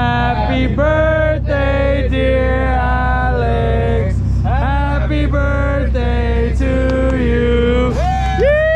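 Background music: a man singing long, sliding held notes over a steady low drone.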